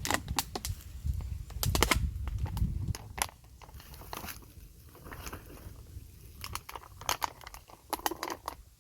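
Irregular crunching and crackling clicks, loudest and densest over a low rumble for about the first three seconds, then sparser and quieter.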